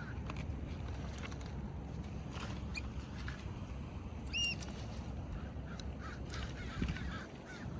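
Steady low rumble of ocean surf and wind on a rocky shore, with scattered small clicks and one short bird call about halfway through.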